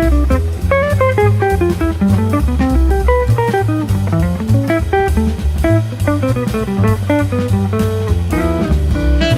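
Background music: jazzy guitar playing a busy run of notes over bass and drums.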